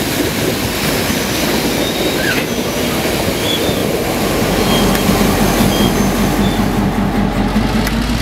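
Passenger train carriages rolling past through the spray of a burst water pipe: a steady hiss of spraying water over the train's rumble. A low diesel engine hum comes in about halfway and grows, with a few faint high wheel squeaks.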